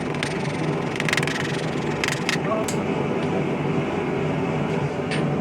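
A few separate ball-peen hammer strikes on the steel star ornament, texturing its surface, over a steady low machine hum.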